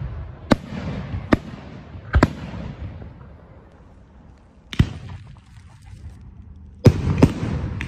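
Fireworks aerial shells launching and bursting: about seven sharp booms at irregular intervals, each followed by a rolling echo, with a short lull in the middle.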